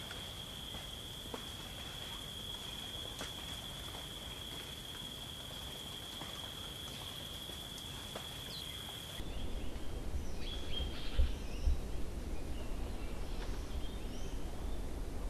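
Outdoor nature ambience: a steady high-pitched drone with faint ticks, which changes abruptly about nine seconds in to a louder low rumble with short high chirps.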